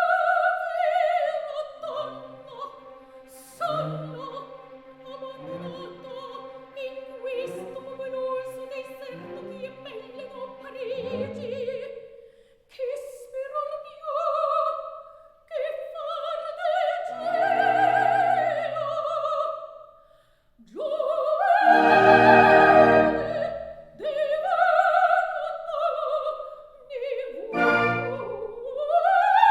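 Background music: operatic singing with orchestral accompaniment, the voice holding long, gliding notes.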